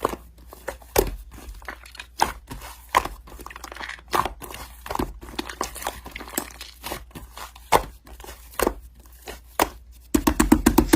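Slime being pressed and squished by hand, with a quick irregular run of crackling, popping clicks, several a second; it grows louder and denser about ten seconds in.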